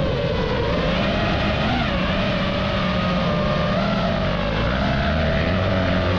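FPV drone's motors and propellers whining steadily, the pitch wavering slightly up and down with throttle.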